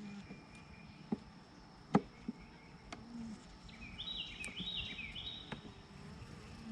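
Honeybees buzzing around an opened hive, with a few sharp knocks and clicks of frames being handled, the loudest about two seconds in. Midway a bird sings a short phrase of repeated falling notes.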